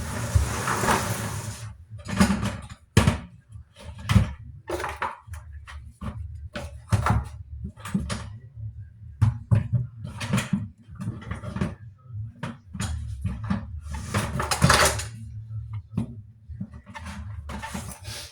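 Hand work on plumbing fittings under a sink: irregular clicks and knocks of a hand tool and parts being handled, with rustling or scraping near the start and again near the end.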